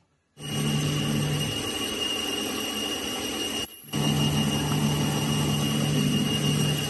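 Metal lathe running with a boring tool cutting inside the end bore of a truck gearbox main shaft: steady machining noise with a high whine and a low hum. It starts suddenly about half a second in and cuts out briefly about four seconds in.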